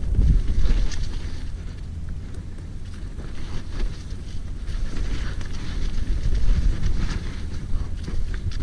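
Wind buffeting the microphone of an action camera on a mountain bike riding down a muddy dirt trail, with tyre rumble and short rattles and knocks from the bike over the rough ground.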